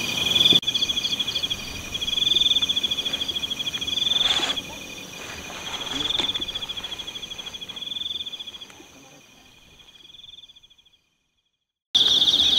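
Night insects, crickets, trilling in several overlapping voices, one rising and falling in pulsing bursts every couple of seconds. There are a couple of faint knocks. The sound fades to silence, and near the end a louder, steady insect trill starts abruptly.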